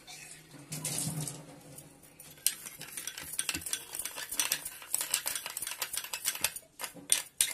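A metal spoon stirring sugar and a little water in a small glass bowl to dissolve it: quick, repeated scraping and clinking of the spoon against the glass, starting about two and a half seconds in.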